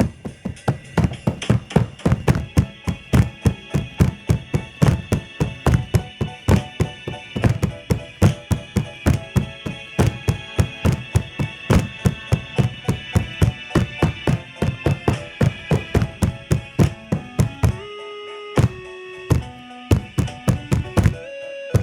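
A song played with a table-bang sound sample, tuned to different notes: rapid knocks, about three to four a second, each carrying a note of the melody. After about 18 s the knocks give way to held notes that step up and down in pitch.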